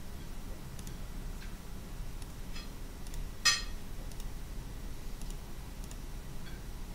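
Computer mouse clicks: a few faint clicks and one sharper, louder click about halfway through, over a low steady background hum.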